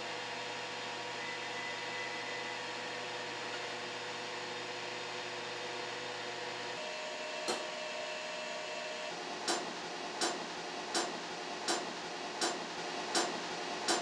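Steady droning hum with a few faint held tones. From about two-thirds of the way in come sharp clicks at an even pace, roughly one every three-quarters of a second.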